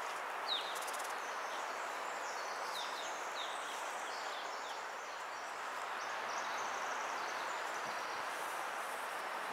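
Steady woodland ambience: an even background hiss with a few short, falling bird chirps in the first few seconds.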